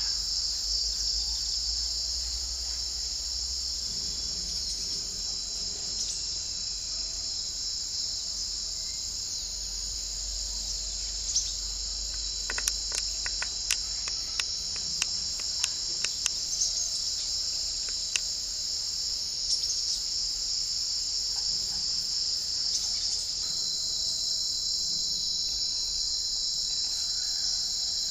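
Insects shrilling in a continuous high, even drone. A run of about a dozen short sharp ticks comes near the middle.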